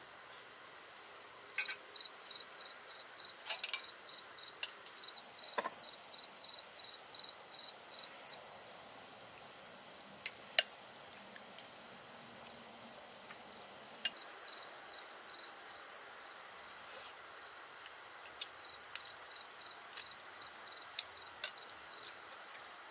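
Crickets chirping in runs of about three chirps a second that stop and start again twice, over a steady high insect hum, with a few sharp clicks of a metal spoon against a ceramic soup bowl.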